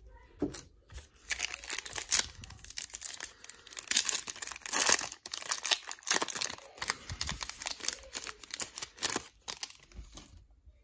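A foil trading-card pack (2020 Donruss Racing) being torn open and its wrapper crinkled in the hands: a dense crackling that starts about a second in and stops shortly before the end.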